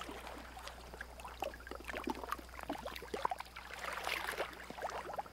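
Small irregular splashes and lapping of shallow seawater stirred by green turtles at the surface, over a faint steady low hum.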